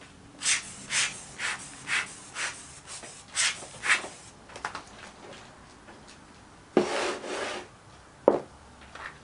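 Scraping strokes in packed moulding sand on a wooden casting flask, about two a second, as the gate is cut into the mould. Then a longer scrape and a sharp wooden knock as the flask is slid and set down on its board.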